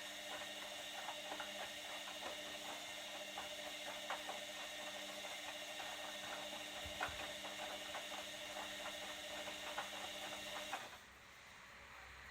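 Candy Optima CO 10651 washing machine running its Cottons 60° main wash: a steady motor whine with irregular clicks and knocks throughout. It cuts off suddenly about eleven seconds in.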